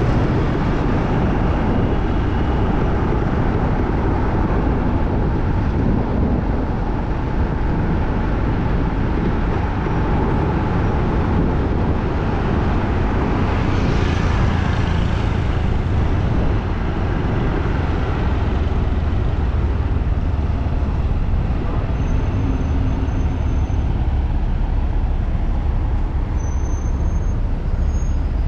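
Steady street noise of passing road traffic, with a continuous low rumble.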